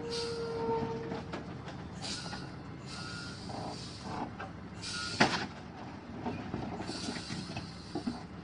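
Loaded log truck running slowly under load: a low engine rumble with repeated short bursts of high hissing, a few squeaks near the start, and a sharp knock about five seconds in.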